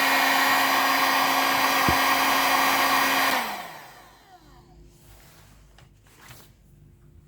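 Heat gun blowing steadily, then switched off about three and a half seconds in, its fan winding down with a falling pitch. A few faint clicks follow.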